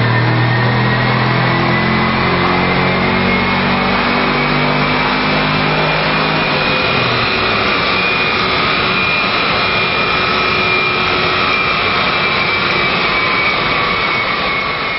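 A 2010 Camaro SS's 6.2-litre V8 making a wide-open-throttle pull on a chassis dyno, its note climbing to about 6,000 rpm and then dropping away about seven seconds in as the run ends. Under it, a high whine from the spinning tyres and dyno rollers rises and then slowly falls as they coast down, over a steady loud rush of noise.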